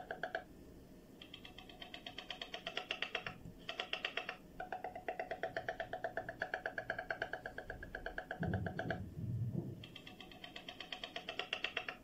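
King penguins calling in a colony: trumpeting calls made of rapid, even pulses, in phrases one to four seconds long with short gaps between them. A deeper sound runs briefly under the calls about three quarters of the way in.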